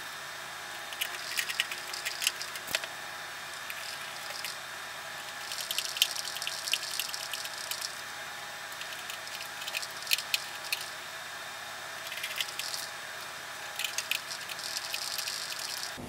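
Screwdriver driving screws into the metal drive bay of a PC case to fasten an optical drive: several spells of small, quick clicks and scraping, over a steady hiss.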